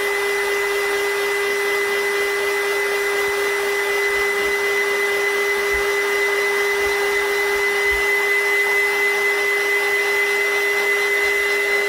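Electric heat gun running steadily, its fan blowing with a constant hum and a high whine, drying a coat of hairspray on a tumbler.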